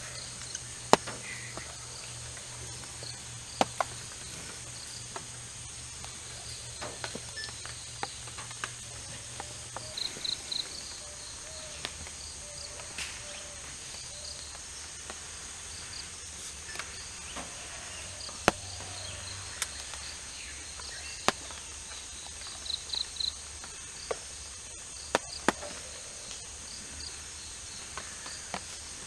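Steady high-pitched drone of forest insects, with two short bursts of rapid chirping. Scattered sharp clicks and snaps are the loudest sounds.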